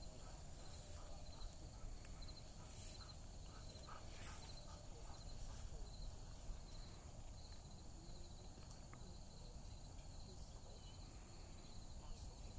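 Field insects such as crickets calling in the grass: a fast pulsing high trill and a steady higher buzz, faint, over a low rumble of wind on the microphone, with a few brief rustles.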